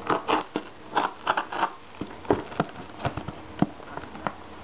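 Small taped cardboard parcel box being handled and worked at to open it: a quick run of cardboard and tape crackles and rustles, turning to sharper separate taps and clicks in the second half.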